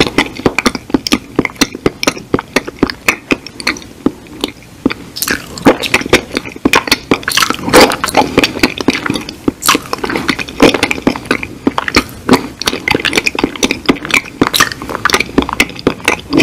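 Close-miked wet mouth sounds: rapid lip smacks and tongue clicks, several a second, from chewing an empty mouth as if eating imaginary food.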